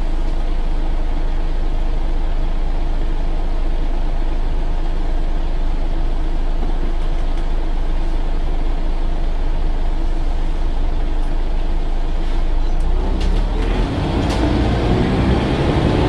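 A Scania OmniCity articulated bus (Scania N94UA) heard from inside the passenger saloon, its engine running with a steady drone. Near the end there is a short hiss, and then the engine note rises as the bus pulls away and accelerates.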